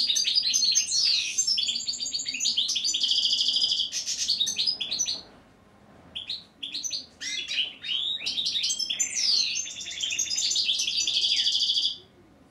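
A caged songbird sings two long, rapid phrases of twittering trills and chirps, with a short pause about five seconds in. The second phrase stops shortly before the end.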